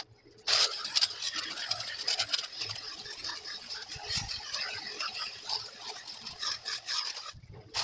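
Dense crackling and rustling of hedge branches and bramble cuttings being pulled and handled, full of small snaps and clicks. It cuts off abruptly near the end.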